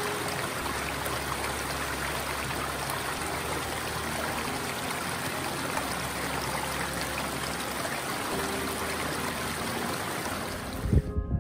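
Small mountain brook splashing and trickling over rocks: a steady, even rush of water. It cuts off just before the end, where a few low thumps begin.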